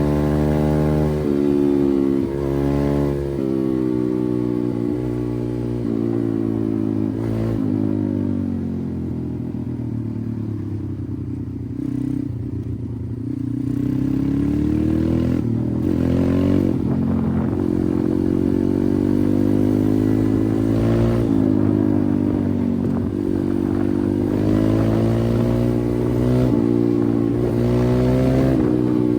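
Pit bike's single-cylinder engine running under way, revving up and easing off again and again so its pitch rises and falls. It is quieter and lower for a few seconds around the middle.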